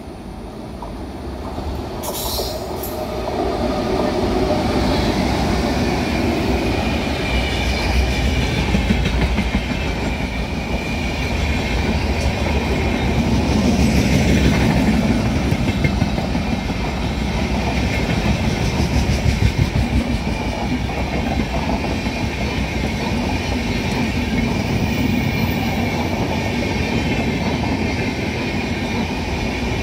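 Indian Railways express train of red LHB coaches passing close by at speed without stopping. The noise builds over the first few seconds as the locomotive arrives, then holds as a loud, steady rush of the coaches going by.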